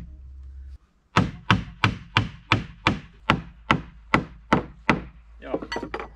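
Hammer knocking on wood, about a dozen sharp blows at roughly three a second, driving a painted wooden cross brace into a tight-fitting opening in a wooden stair railing; a short clatter follows near the end.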